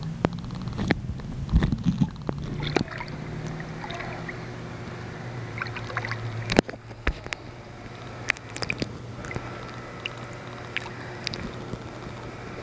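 Pool water sloshing and gurgling around a camera dipped at and under the surface, with scattered sharp clicks and knocks, the loudest about halfway through, over a steady low hum.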